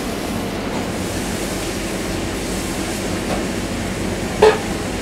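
Tap water running steadily into a basin of lotus seeds being rinsed, with a sharp clunk near the end.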